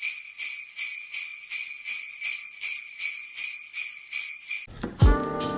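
Jingle bells shaken in a steady rhythm, a little under three shakes a second. Near the end they cut off abruptly and music starts, with sustained keyboard tones and a deep bass drum hit that slides down in pitch.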